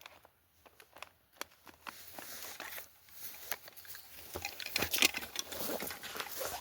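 Close handling noise: a few scattered clicks and knocks, then from about two seconds in a denser crinkly rustling that grows louder, as gear or packaging is handled and put away.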